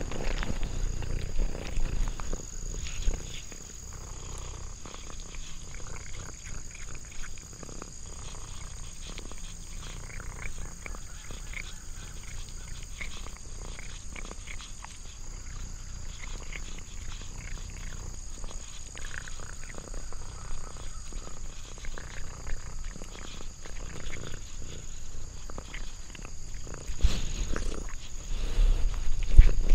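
Domestic cat licking and chewing food close to the microphone: a run of small wet clicks and smacks, with a few louder low thumps near the end. Insects trill steadily in the background.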